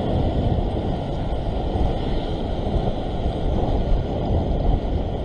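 Heavy surf breaking and washing over a rock shore platform, a steady rushing rumble, with wind buffeting the microphone.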